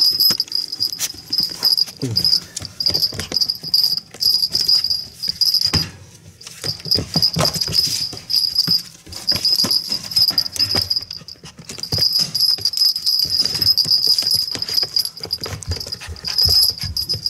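A toy poodle puppy whining in a fast, continuous run of high-pitched peeps, with a short pause about eleven seconds in, over scattered clicks and scuffs of movement.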